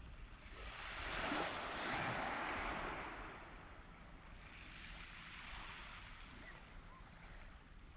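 Small waves washing onto a shingle beach, the wash swelling up twice and falling back, over a low rumble of wind on the microphone.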